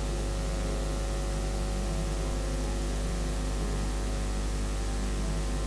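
Steady electrical hum with a constant hiss, a strong low mains hum with a stack of steady tones above it.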